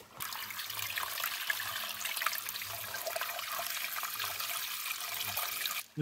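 Steady trickle of running water, an even hiss with no strokes or splashes.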